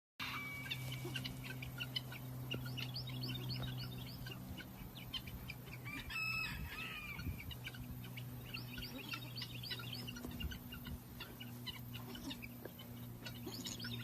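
Chicks peeping rapidly and continuously, with one louder call about six seconds in, over a steady low hum.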